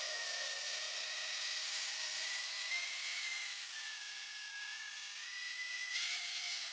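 A small electric motor whining steadily under an even hiss, its pitch wavering slightly up and down.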